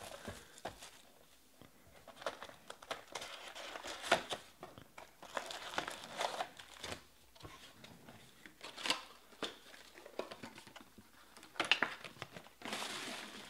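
Foil-wrapped card packs and the cardboard box of a 2020 Panini Select Baseball hobby box being handled as the box is opened and emptied: irregular crinkling and rustling of the pack wrappers. A longer, steadier rustle comes near the end.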